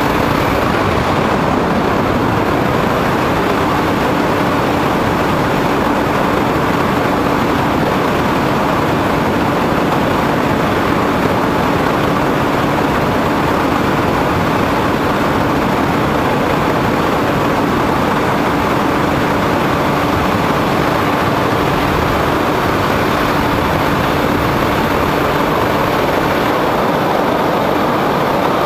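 Steady, loud rush of wind and motor-and-propeller noise picked up by a camera riding on a foam radio-controlled plane in flight, with a faint steady hum running under it.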